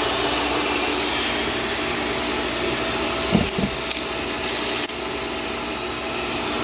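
Shark Stratos vacuum cleaner running steadily. Two short knocks come about three and a half seconds in, then a brief high hiss, and the running sound drops slightly in level near five seconds.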